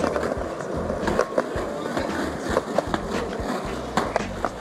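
Skateboard on concrete: wheels rolling, with a string of sharp clacks as the board is popped, hits the ground and is landed on.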